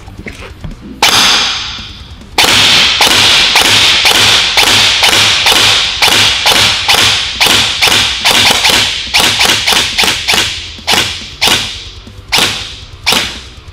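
Upgraded Gel Blaster Frontier Honey Badger gel blaster, an electric spring-piston gearbox blaster, firing shot after shot through a chronograph. One shot comes about a second in, then a steady string of about three shots a second, thinning to a few spaced shots near the end. Each shot is a sharp crack that dies away quickly.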